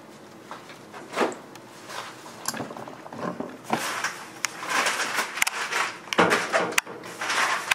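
Kitchen handling noises: scattered clicks and knocks with rustling, getting busier about halfway through.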